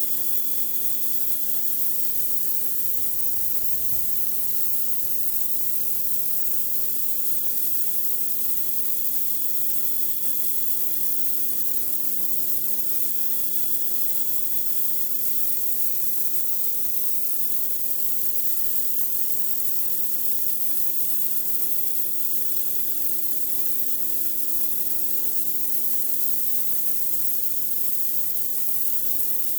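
Pressure washer running steadily: high-pressure water spray hissing against concrete over the machine's constant droning hum.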